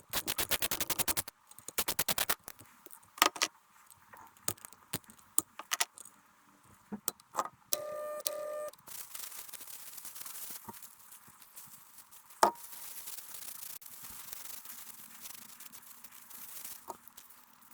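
Small metal parts and tools clicking and clinking during bench work on a transmission mechatronics unit, with a rapid run of clicks at the start and scattered sharp knocks after. A short electronic beep sounds about eight seconds in, and a faint hiss runs through the second half.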